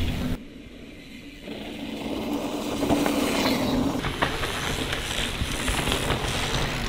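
Mountain bike rolling fast over a dirt and grass trail: a rushing tyre noise that swells in about a second and a half in as a rider passes close, with a few sharp clicks from the bike and ground.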